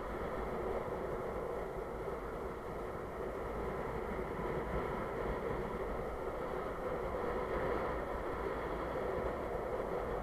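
Steady rush of wind buffeting the microphone, mixed with the roll of longboard wheels on asphalt at downhill speed.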